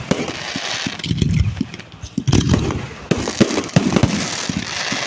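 Fireworks display going off: repeated sharp bangs of bursting shells, with crackling and a low rumble between them.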